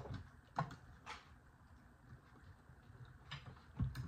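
A few light clicks and clinks of forks against metal serving pans, scattered about a second apart, with a duller knock near the end.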